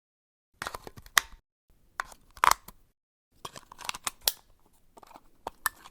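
Sharp clicks and snaps of a battery being changed: the battery and its cover being pried out, fitted and clicked into place, in four short bursts of handling.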